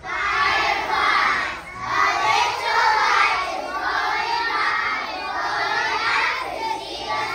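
A class of young children singing loudly together in unison, many voices at once, in phrases a couple of seconds long.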